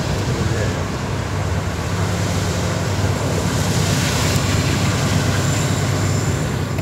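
Norfolk Southern manifest freight train passing at speed: a steady low rumble and rushing noise of cars rolling on the rails.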